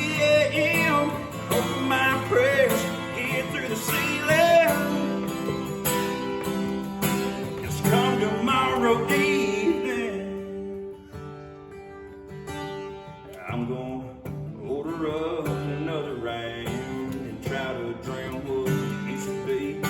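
Instrumental break in a country song played by a band, with a guitar carrying the melody. It thins out to a quieter stretch about halfway through, then the full band comes back in.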